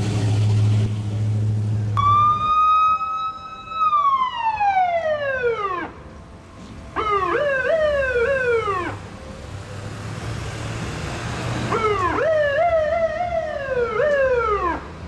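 Fire engine siren sounded three times. First comes a long wail that starts about two seconds in, holds high and then slowly winds down. Then come two shorter wails that waver up and down before each winds down. A heavy truck engine runs low underneath at the start.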